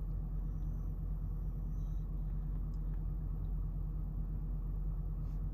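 Steady low rumble of a Range Rover's engine and tyres, heard from inside the cabin.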